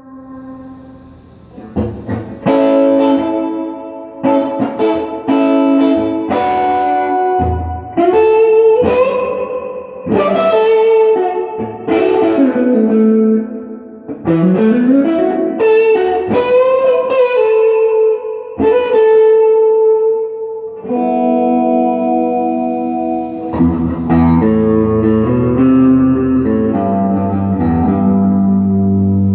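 Gibson Les Paul electric guitar with Classic 57 humbuckers played through an EarthQuaker Devices Ghost Echo reverb pedal into a Fender Pro Junior III valve amp. Picked single-note lines with string bends and slides, moving to sustained chords about two-thirds of the way in.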